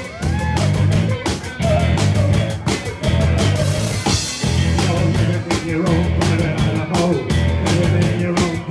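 Live rock band playing loudly: electric guitars, bass guitar and a drum kit driving a fast beat, with a woman singing over it.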